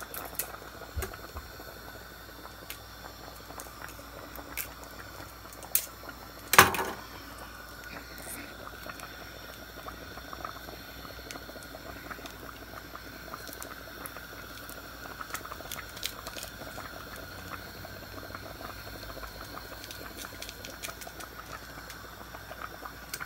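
A large pot of seasoned rice with ackee and chicken simmering on the stove, bubbling and crackling softly and steadily. A single sharp knock about six and a half seconds in.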